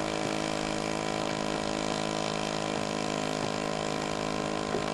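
String-trimmer (weedwacker) engine of a remote-controlled boat, running at a steady speed out on the water.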